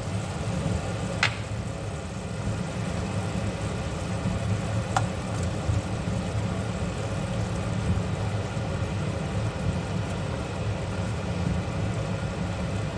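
Thick tamarind-ginger mixture simmering in an iron kadai as jaggery is dropped in and stirred with a wooden spoon, over a steady low hum. Two sharp knocks against the pan, one about a second in and one at about five seconds.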